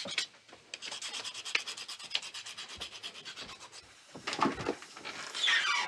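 A knife blade drawn in rapid strokes across a round hand-held whetstone: a fast, even scraping as the edge is sharpened. A few louder scrapes follow near the end.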